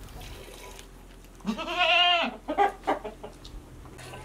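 A goat bleats: one long, wavering call about a second and a half in, followed by a short second call.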